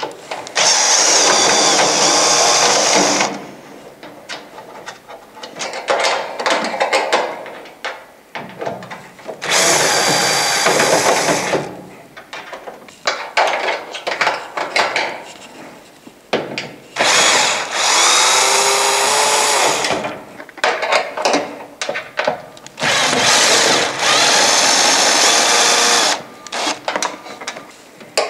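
Cordless drill with a Phillips bit running four times, about three seconds each time, backing out cabinet screws. Short clicks and knocks of the screws and parts being handled come between the runs.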